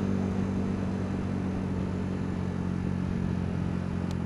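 Yamaha YZF-R125's 125 cc single-cylinder four-stroke engine running at a steady cruise, its engine note even, under wind and road noise.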